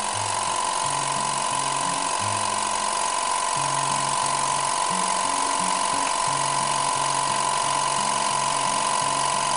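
Electric air compressor running steadily, pumping up an air tank, with a strong steady whine over its even running noise.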